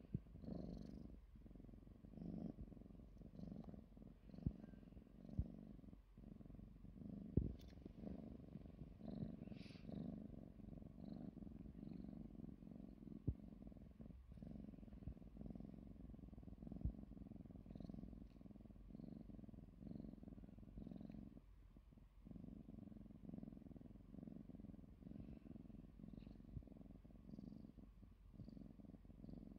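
Young tabby cat purring steadily at close range: a low rhythmic rumble with a few short breaks, and a few sharp ticks over it.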